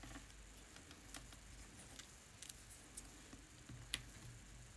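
Near silence with a few faint, sparse ticks and clicks from paper and tape being handled, one slightly louder about four seconds in.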